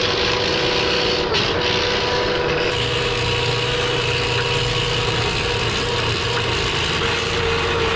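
Electric drain-cleaning machine running steadily, spinning a flexible shaft with a chain knocker inside a rainwater pipe clogged with hardened material; its pitch dips briefly about a second in.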